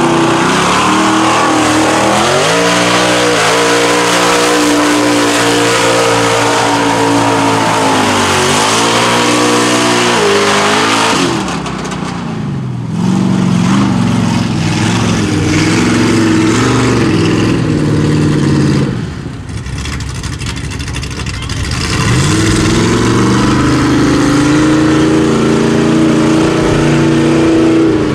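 Lifted Chevy mud truck's naturally aspirated LS V8, a 6.0 iron block stroked to 402, revving hard as the truck drives, its pitch climbing and falling with the throttle. It eases off twice, about a third of the way in and again about two-thirds in, then revs back up.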